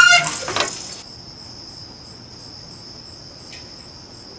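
Crickets chirping in a steady, high-pitched trill. In the first second a louder sound with a few pitched tones cuts off abruptly.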